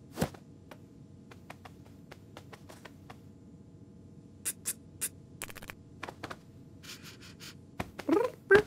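Cartoon sound effects of a cat's claws scratching and picking at sofa upholstery: scattered small scratches and clicks, a few sharper ones halfway through. A short voiced cat vocalisation comes near the end.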